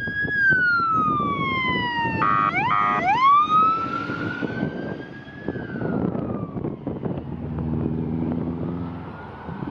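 Fire engine's electronic siren wailing in long falling and rising sweeps, broken a couple of seconds in by two short horn blasts. The truck's diesel engine rumbles underneath, loudest as it passes, while the siren fades away near the end.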